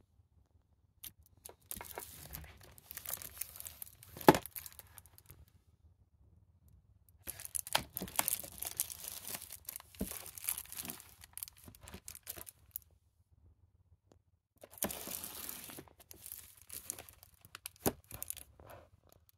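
Crackling, rustling handling noise from a handheld phone being moved while it films. It comes in three stretches of a few seconds each, full of small clicks, with one sharp click about four seconds in.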